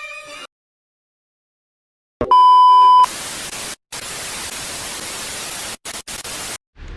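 A short, loud steady beep, followed by a hiss of white-noise static for about three and a half seconds that drops out briefly a few times and then cuts off; the tail of music ends just before the beep.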